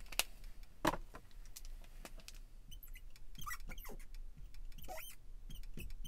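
A couple of sharp clicks as markers are handled, then a marker squeaking in short, high strokes on the glass of a lightboard as a word is written.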